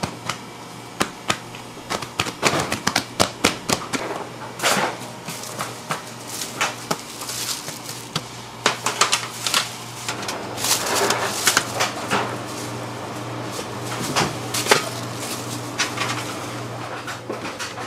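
Bakery work sounds: scattered knocks and clatter with short bursts of plastic rustling, over a steady low machine hum.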